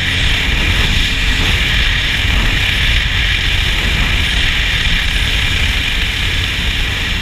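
Powerboat running at speed, heard from on board: a loud, steady mix of engine rumble and rushing hiss from wind and water.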